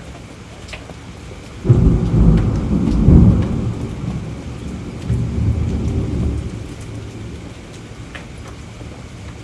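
A thunderclap over steady rain. The thunder breaks suddenly about two seconds in and is loudest a second later; it swells again briefly and rolls away, leaving only the rain.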